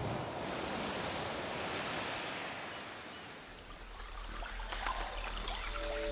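Ocean surf washing as an even rush, fading out about three seconds in. After that a high, short note repeats about every two-thirds of a second over a low hum, and held music notes come in near the end.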